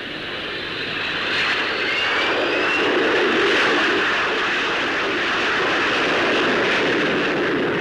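Jet aircraft flying over: the Short Sperrin carrying an experimental de Havilland Gyron turbojet. It gives a steady rushing jet noise with a faint rising whistle, growing louder over the first few seconds and then holding.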